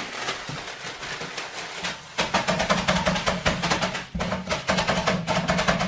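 Background music: a fast, busy percussion beat over a steady low bass line comes in about two seconds in, after a stretch of plain hiss.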